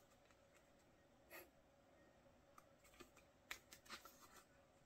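Near silence with faint paper handling: a soft rustle about a second in, then a few small clicks and crinkles near the end as the pages of a paper sticker-and-photo booklet are turned.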